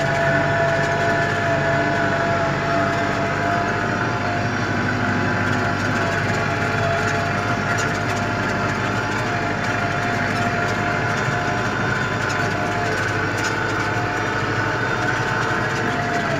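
Tractor engine running steadily under load, heard from inside the cab, with a steady whine over the engine note.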